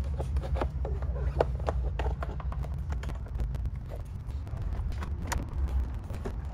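A 2019 Ram truck's plastic rear door trim panel being handled and fitted back onto the door: scattered clicks and knocks of plastic against the door, over a steady low hum.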